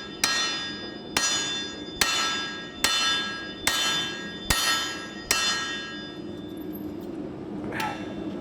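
Steel-on-steel hammer blows, an axe swung as a forging hammer driving a punch through a hot axe head set over the anvil's hardy hole to open the eye. Seven ringing strikes come about 0.8 s apart and stop about five and a half seconds in, with one lighter strike near the end.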